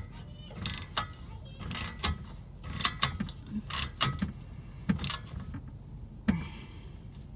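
Hand tools and metal exhaust parts clicking and clinking in irregular sharp strikes, one or two a second, some with a brief metallic ring, over a low steady rumble.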